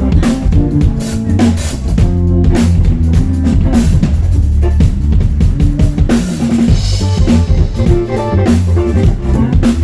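Live band playing: drum kit with kick drum and rimshots, bass guitar and guitar, loud and steady.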